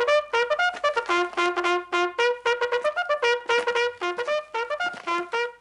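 Trumpet playing a quick run of short, separately tongued notes that jump between a few pitches, several notes a second, like a military fanfare.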